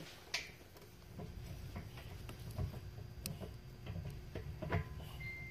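Faint scattered clicks and light taps of metal parts being handled as a grab handle is fitted onto its spindle.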